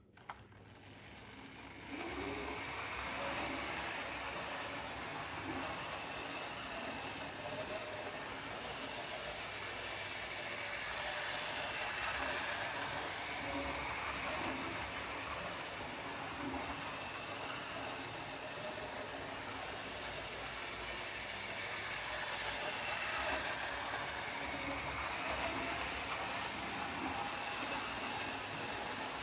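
Model InterCity 125 train running round an oval of model track, a steady mechanical running noise with a hiss. It builds up over the first two seconds and swells twice as the train comes round past the nearest point of the loop.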